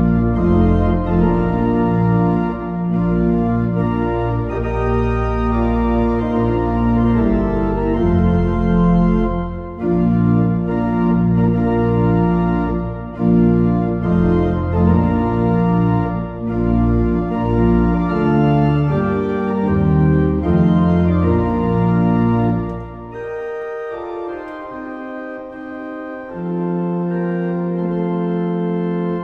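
Organ music playing slow, sustained chords over a deep bass line. About 23 seconds in the bass drops away and a few higher notes are held.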